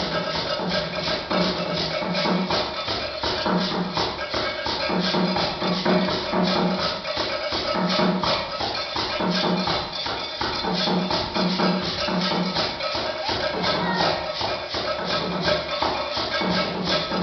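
Afro-Cuban percussion music: a shaker keeps a fast, even beat, about four to five strokes a second, over a repeating pattern of low, pitched drum strokes.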